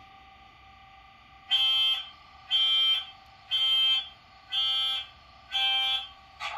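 Sound-fitted Bachmann Class 66 diesel model's decoder playing the locomotive's start-up sequence through its small onboard speaker. A steady hum is followed by five loud, buzzing alarm beeps about once a second, and a short loud burst near the end.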